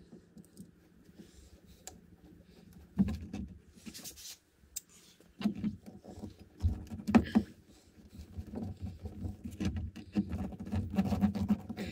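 Irregular clicks, taps and scraping from hand work on a pickup truck's door panel, with a screwdriver being worked at the armrest, in short bursts with pauses between.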